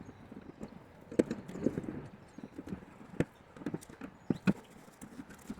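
Irregular clicks, taps and light clunks of hand tools and metal parts being handled while the door's window glass and its channel are fitted, with sharper knocks about a second in, near the middle and twice close together a little later.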